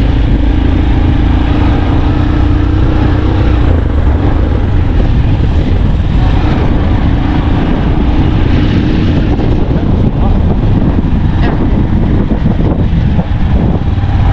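A vehicle driving steadily, with constant engine and road rumble and a faint hum that fades in and out.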